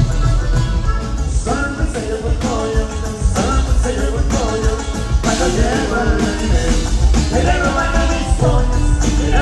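Norteño band playing live, with accordion and a steady bass-and-drum beat, and singing over it from about a second and a half in.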